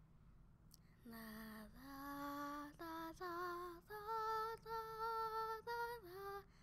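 A lone female voice singing a slow, wordless melody of held notes, starting about a second in, with a soft click just before it.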